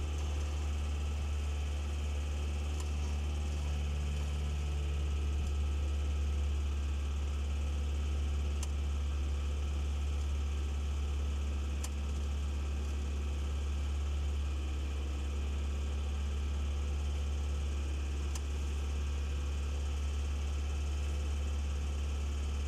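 A vehicle engine idling with a steady low hum, with a few faint clicks over it.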